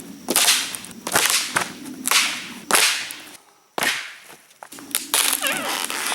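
Dry sticks and branches snapping, a rapid series of sharp cracks with brief splintering after each, and a short pause about halfway.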